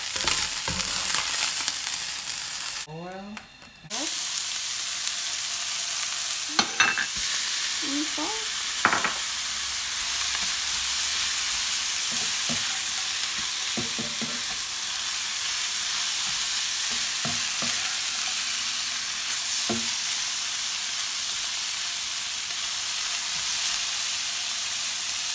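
Shredded carrots, onion and shrimp sizzling in hot oil in a frying pan, stirred with a spatula that knocks against the pan now and then. The sizzle briefly cuts out about three seconds in.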